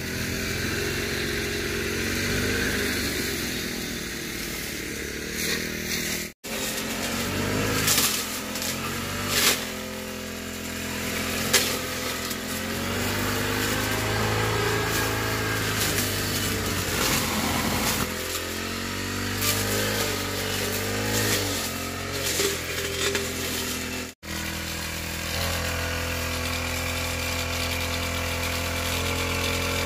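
Brush cutter engine running as it cuts tall grass and brush, its note rising and falling as it revs.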